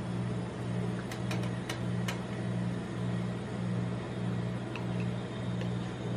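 Steady low hum of the rolled-ice-cream machine's cold-plate refrigeration unit, pulsing gently about twice a second. Between one and two seconds in there are four light clicks of metal tongs.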